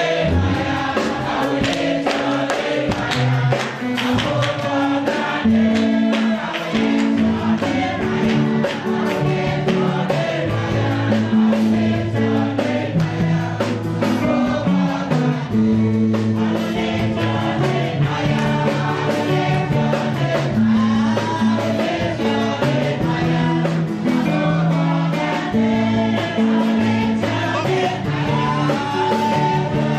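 Gospel praise song: a choir of voices singing over a band with steady bass notes and light percussion.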